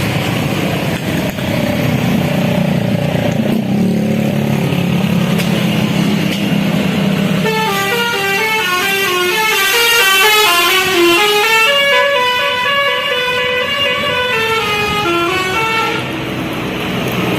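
Tour bus 'telolet basuri' horn, a set of several air horns playing together, running a fast, winding tune of stepped notes that climb and fall, starting a little before halfway and stopping shortly before the end. Before it, only a steady low bus engine and traffic hum.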